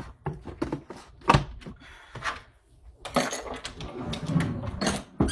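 A string of knocks, clicks and clatter from objects being handled while food is prepared, with one loud thunk just over a second in and denser clattering through the second half.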